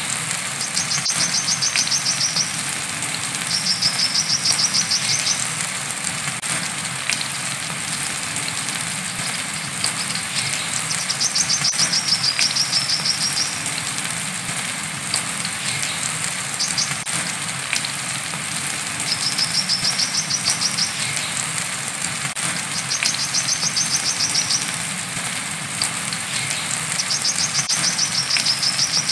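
Brown-throated sunbird (kolibri kelapa) singing its wiceh song: high, rapid trilled phrases of about one to two seconds, repeated every few seconds, over the steady hiss of rain.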